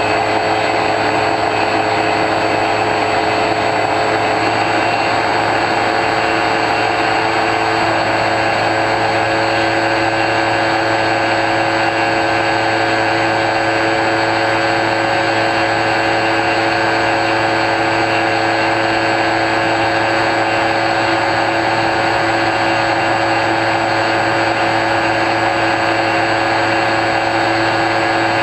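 Brushless electric motor of an X-UAV Talon model plane, a 3648 KV1200 outrunner turning a 9x6 pusher propeller, running at steady cruise throttle. It makes a continuous whine of several steady tones over a rush of air.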